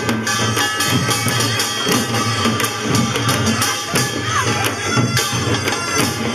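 Korean pungmul folk percussion played live by a troupe: drums beaten with metallic clanging in a fast, dense rhythm of strikes.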